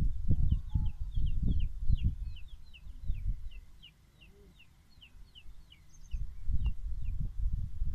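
Rapid high chirps of small birds, several a second, over loud bursts of low rumbling noise that fade out around three and a half seconds in and return after six.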